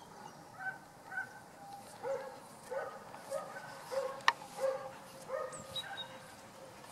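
Belgian Malinois barking repeatedly at its handler's bite cushion, roughly two short barks a second, as a working dog does when demanding the bite in protection training. A single sharp click sounds about four seconds in.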